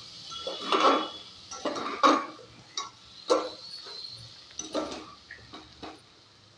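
Steel spatula stirring a thick vegetable masala in an aluminium pressure cooker, scraping and knocking against the pot about once a second. The strokes die away near the end.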